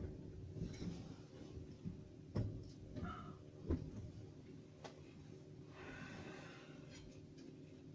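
Steady low electrical hum inside the cab of a standing class 163 electric locomotive, broken by a few short knocks and clicks, the sharpest about two and a half and three and a half seconds in.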